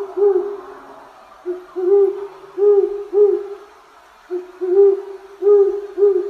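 A bird hooting: low, repeated notes in phrases of about four, each phrase opening with a shorter note, with a short pause between phrases.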